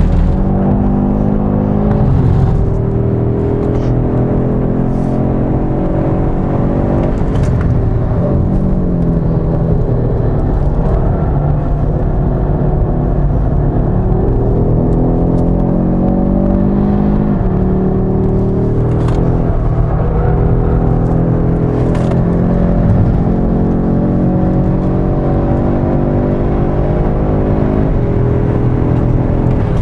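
The Audi RS 3's 2.5-litre turbocharged five-cylinder engine, heard from inside the cabin, pulling hard. Its pitch climbs and then drops back again and again as the seven-speed dual-clutch gearbox changes gear. A few short sharp cracks cut through.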